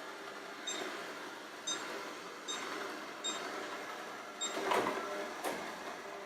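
Robot vacuum running with a steady motor and brush hum. Five short high beeps sound about once a second, then two knocks come near the end.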